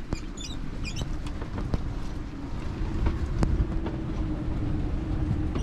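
Wind rumbling on the microphone on a sailboat's deck, with a steady low hum underneath that grows a little stronger partway through and a few scattered light clicks.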